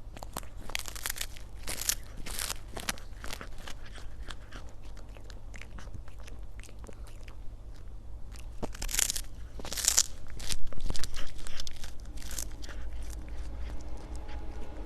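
Crunchy chewing: a run of irregular, crackly bites through something hard and dry, loudest about two-thirds of the way through.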